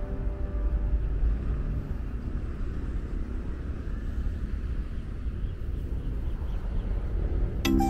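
Low, uneven outdoor rumble of open-air city ambience. Music comes in near the end.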